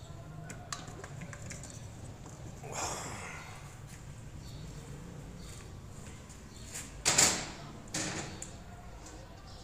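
Hand-work noises under a car at the 7-speed DSG gearbox as a removed part is taken off and handled: a short rustle about three seconds in, then a sharp knock about seven seconds in and a smaller one a second later.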